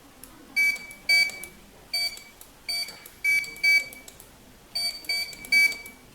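IPBS001 wireless 1D barcode scanner beeping about ten times at uneven intervals, each short single-pitched beep the good-read confirmation of a scanned barcode.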